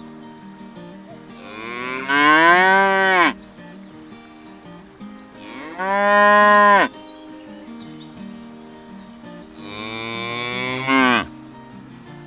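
Cattle mooing: three long moos about four seconds apart, each rising and then falling in pitch, over soft background music.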